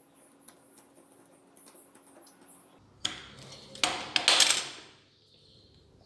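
Light scratching as a utility knife works the coaxial cable's foil shield, then a sharp click about three seconds in and about a second of loud crunching and scraping as pliers grip and strip the cable's end.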